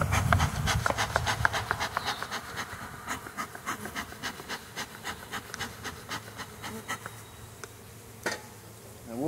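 Honeybees buzzing over an open hive, with a quick run of small sharp clicks over the first few seconds that thins out after that.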